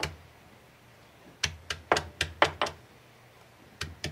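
Shallots, ginger and garlic being crushed by pounding: sharp knocks, a quick run of about six blows a second and a half in, then two more near the end.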